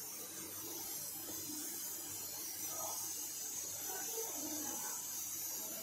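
Soft rustling of a hand stirring dry flour and semolina in a steel bowl, over a steady hiss.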